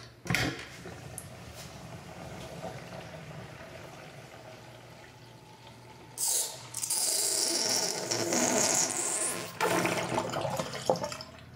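Bathroom sink draining through its pop-up drain after the tap is shut off: a steady trickling rush. About six seconds in it turns into a loud hissing gurgle as the basin empties and the drain draws air, then choppier gurgles near the end. The drain runs freely.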